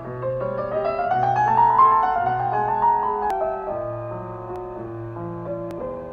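Background piano music: a run of notes climbs and then falls back over held low bass notes.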